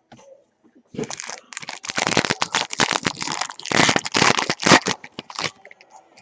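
Foil trading-card pack wrapper being torn open and crinkled, a loud run of crackling starting about a second in and stopping near the end.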